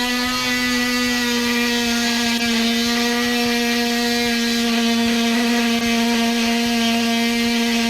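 DeWalt oscillating multi-tool with a carbide-tipped blade cutting into a Loctite-seized steel seat security screw: a loud, steady, high buzz that switches on abruptly right at the start.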